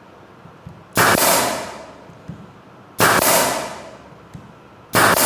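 A pneumatic air stapler firing into wood three times, about two seconds apart, each sharp shot trailing off over about a second.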